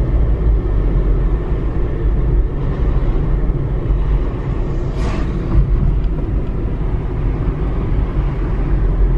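Road and engine noise inside a moving car's cabin: a steady low rumble, with one brief click about five seconds in.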